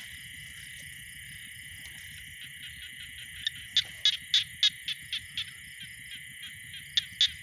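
Steady chorus of night insects, with two runs of loud, sharp calls from a small animal, evenly spaced at about four a second.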